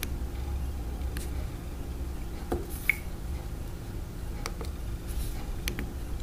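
Light fingertip taps and clicks on a Samsung Wave S8500's touchscreen, about half a dozen scattered over several seconds. One about three seconds in carries a short high ping. A low steady hum lies underneath.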